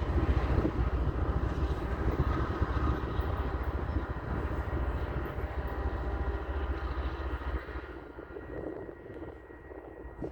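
Diesel commuter train rumbling past as it pulls away, engine working under load, fading off after about eight seconds.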